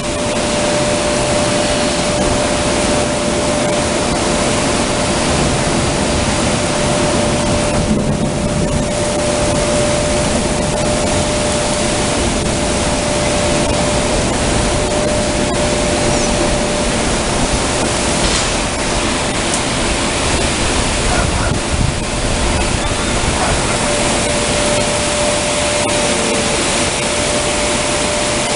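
Heavy rain falling steadily, with a vacuum cleaner running and giving a steady whine underneath.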